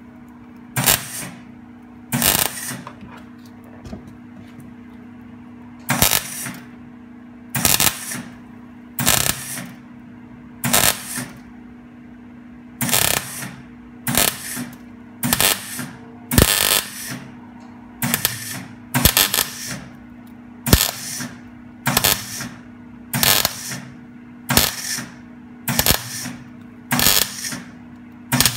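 ESAB MIG welder tack-welding a new steel quarter panel: a string of about nineteen short bursts of arc crackle, each under a second, mostly one to two seconds apart, over a steady low hum.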